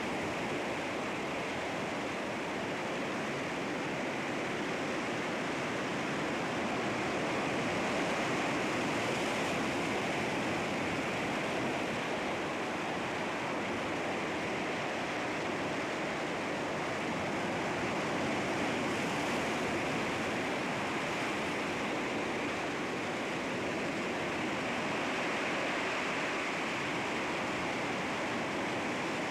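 Sea waves washing continuously against rocks, a steady rushing surf that swells and eases gently.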